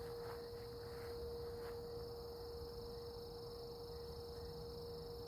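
A faint, steady humming tone held on one pitch, which the man attributes to the surrounding cell towers and likens to a phone off the hook. Night insects keep up a steady high buzz behind it.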